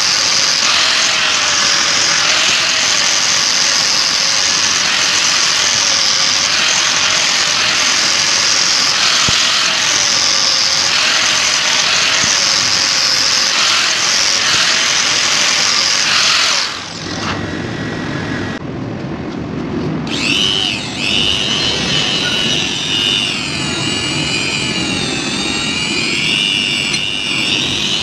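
Angle grinder running steadily with its disc on a wooden hammer handle, its motor tone wavering as the load changes. About 17 seconds in it gives way to a small orange rotary tool with a higher whine that wavers as it works the steel hammer head.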